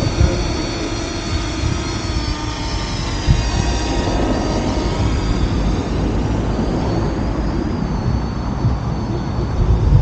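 Parrot Anafi quadcopter's propellers whining in flight: a steady high whine that wavers slightly in pitch, over a low rumble.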